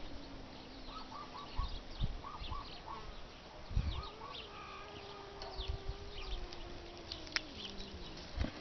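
Cats yowling in a standoff: long, low, drawn-out yowls. One trails off a couple of seconds in, and another rises about four seconds in and is held for nearly four seconds before falling. Small birds chirp in short runs around them.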